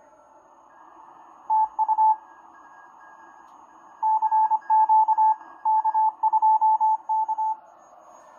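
Morse code (CW) signal from a ham station on 160 metres, heard on a 1921 Grebe CR-8 regenerative receiver through its horn loudspeaker. It is a single steady beep keyed in dots and dashes over steady band hiss: a short burst about a second and a half in, then a longer run of characters from about four seconds in to near the end.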